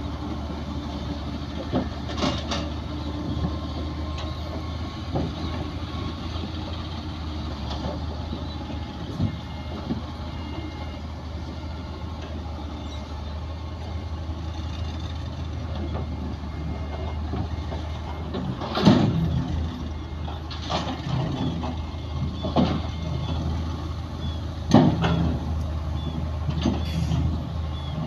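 Heavy diesel earthmoving machinery running with a steady low engine drone. A few sharp clanks and bangs come in the second half.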